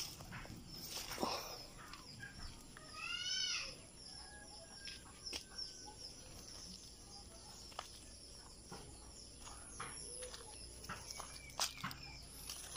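Leaves and stems rustling and snapping as garden greens are picked by hand, with scattered sharp clicks. One short bird call sounds about three seconds in.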